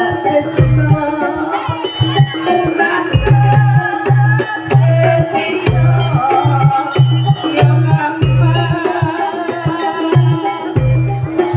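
Live jaranan ensemble music: hand drums playing over a steady, repeating low beat, with melodic instrument lines above.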